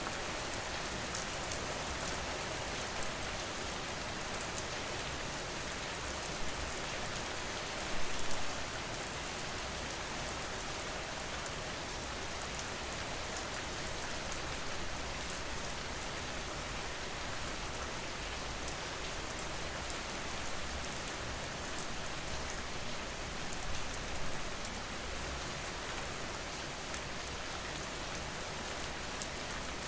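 Steady rain falling, with fine drop patter throughout and a brief louder spatter about eight seconds in.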